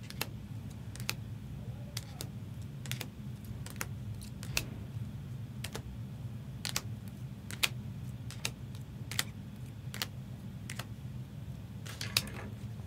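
Irregular sharp clicks and taps of small hard plastic objects being handled, roughly one or two a second, over a steady low hum.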